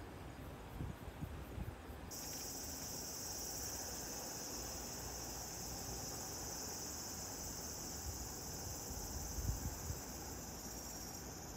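Cicadas droning in a steady, high-pitched buzz that starts suddenly about two seconds in, with a few low thumps about a second in and again near the end.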